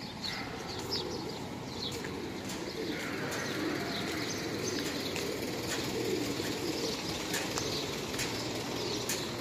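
A flock of feral pigeons cooing together in a steady, wavering murmur, with short high chirps of other birds scattered over it.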